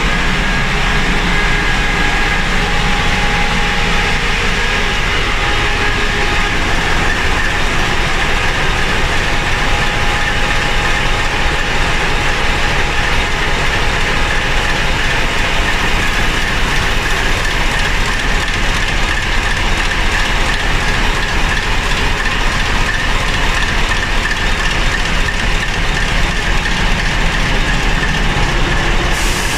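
ST44 diesel locomotive, its two-stroke V12 diesel engine running loudly and steadily.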